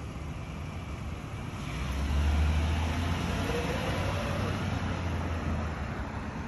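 Police car pulling away and driving off, its engine and tyre noise swelling about two seconds in as it accelerates, with a steady low rumble.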